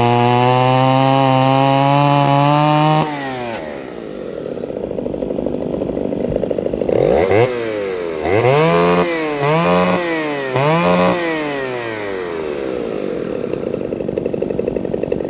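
Small two-stroke chainsaw held at full throttle in a cut, dropping back about three seconds in. It then idles, is revved up and down four times, and settles back to idle.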